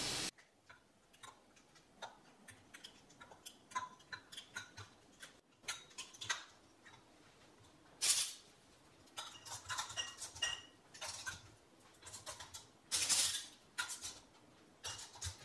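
Two-piece metal canning lids being fitted to glass mason jars: scattered light clicks and small metallic taps as flat lids go onto the rims, and a few longer scrapes as screw bands are twisted down onto the threads, about eight and thirteen seconds in.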